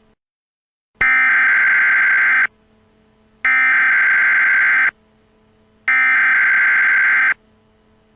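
Emergency Alert System digital header: three identical loud, harsh data screeches, each about a second and a half long and about a second apart, sounded as the alert breaks into the broadcast. A faint low hum fills the gaps between bursts.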